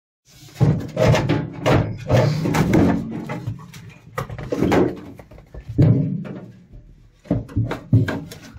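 Rusty sheet-metal tank, the sink's water tank, being shifted and handled: a series of clunks and knocks with metal scraping between them.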